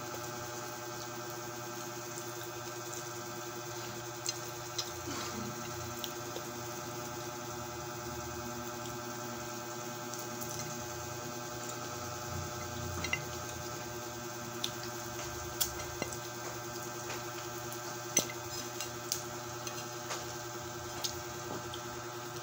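Eating sounds of someone eating fried chicken and bread by hand: irregular small clicks and smacks of chewing and fingers on a plate, over a steady hum.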